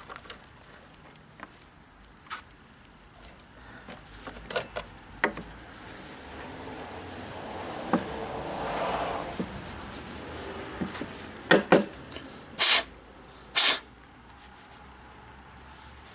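Rubbing and scraping as mud and sawdust are cleaned out of a chainsaw with its chain off, with scattered small clicks and a longer stretch of scraping about halfway through. Near the end come a few sharp knocks of hard parts.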